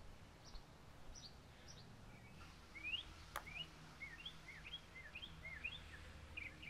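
Faint birds chirping, with a run of short rising notes about twice a second in the latter half. A single sharp click about three and a half seconds in, a putter striking a golf ball.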